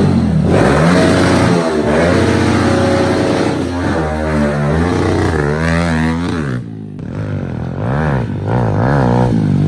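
Kawasaki KLX110 pit bike's small four-stroke single-cylinder engine running and being revved repeatedly, its pitch rising and falling with each blip of the throttle. It now runs clean and responds to throttle with the water-soaked air filter taken out.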